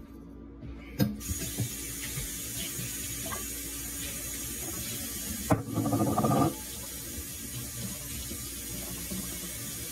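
Kitchen tap turned on with a click about a second in, water then running steadily into a stainless steel sink. Just past the middle there is about a second of louder splashing.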